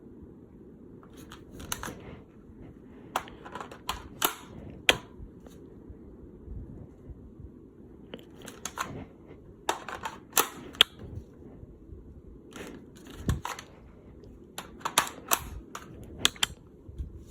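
Assault rifle being reloaded: sharp metallic clicks and clacks in clusters a few seconds apart as magazines are pulled out and seated and the action is worked.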